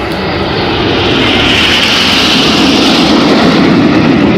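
Red Arrows BAE Hawk T1 jets flying past in formation: loud jet engine noise that swells over the first second or two and then holds.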